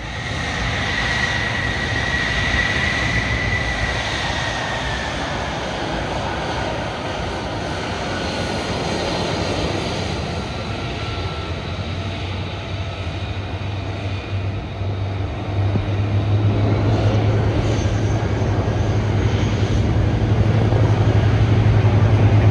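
Lockheed Martin F-35A Lightning II's single F135 turbofan jet engine running at taxi power: a steady jet rush with a high whine that fades after a few seconds, growing louder in the last several seconds.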